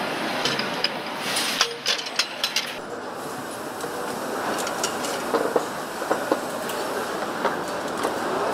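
Engine assembly-line factory noise: a steady hum with scattered sharp metallic clinks and clicks of metal parts being handled. A quick cluster of clinks comes in the first three seconds; after that the higher hiss drops away and sparser clinks follow.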